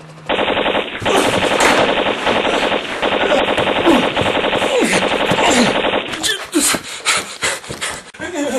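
Rapid machine-gun fire that starts suddenly, then breaks off about six seconds in into scattered single cracks.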